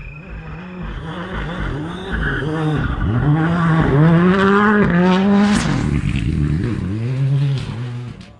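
Rally car engine revving hard on a gravel stage as it approaches and slides past, the revs climbing and dropping again and again with gear changes and throttle lifts. It is loudest in the middle as it passes and cuts off abruptly near the end.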